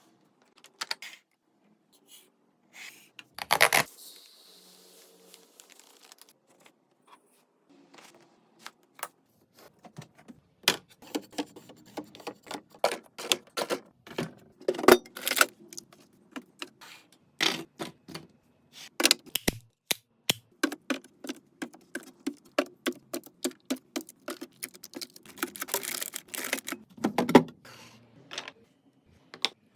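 Food containers, bottles and packages being handled and set down while restocking a fridge: a long, irregular run of sharp clicks, taps and knocks, with a brief hiss about four seconds in.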